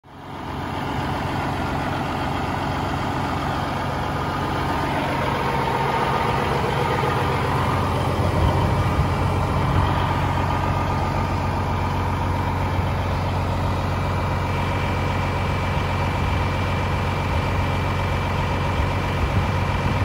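Peterbilt 389 semi truck's diesel engine idling steadily, fading in during the first second.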